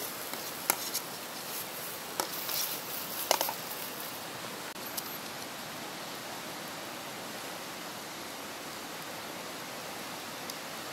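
A metal spoon clicks and scrapes against a frying pan a few times in the first few seconds as chicken is stirred over a wood fire, over a steady, even hiss.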